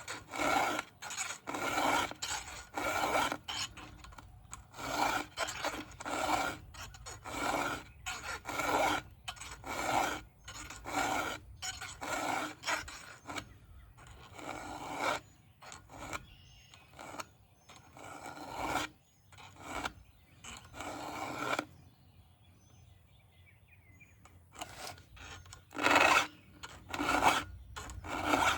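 A round file rasping across the cutters of a Stihl MS 500i saw chain in hand strokes, about two a second, pausing for a few seconds about three-quarters of the way through before the strokes resume.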